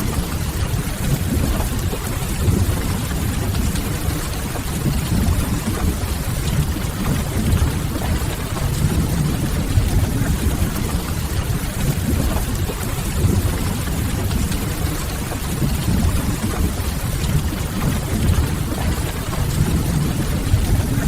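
Steady rain falling on a window, an even hiss over a deep, constant low rumble.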